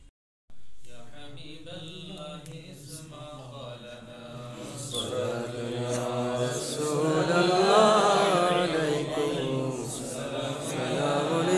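Men's voices chanting devotional salutations to the Prophet (salawat) in a slow melodic recitation, as at a milad. It starts about half a second in and swells louder toward the middle.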